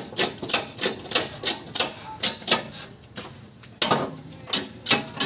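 Rapid hammer blows on steel, about three a second, each strike ringing briefly, with a short lull near the middle: metal being hammered while the worn rear axle bearing is worked off a Toyota Innova axle.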